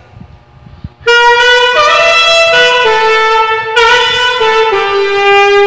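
Alto saxophone playing a short melodic phrase of several notes, starting about a second in and ending on a long held lower note.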